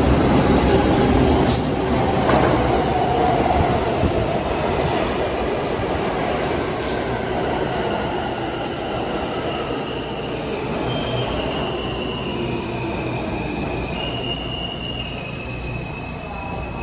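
R160 New York City Subway train running, a loud steady rumble of wheels and rails that slowly grows quieter. Thin high-pitched tones come in over it in the second half.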